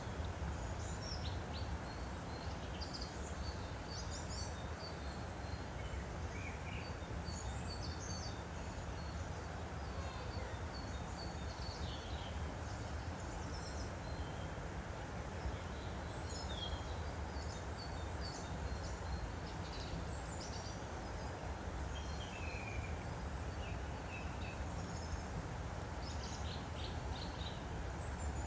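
Steady rushing of a woodland stream, with small birds chirping on and off over it.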